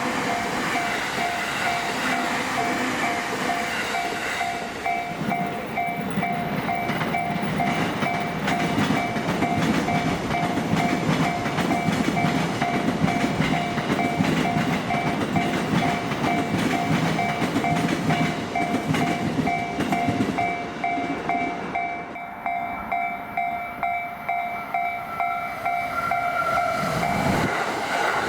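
A Japanese level-crossing alarm rings on with its steady repeating electronic ding while electric commuter trains pass over the crossing. The trains' running noise builds about five seconds in. Near the end it gives way to an even clatter of wheels over the rail joints.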